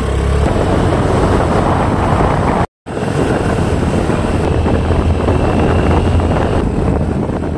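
Loud rushing wind noise on the microphone over a low vehicle drone, as from a moving vehicle. It cuts out for a split second a little under three seconds in, then carries on.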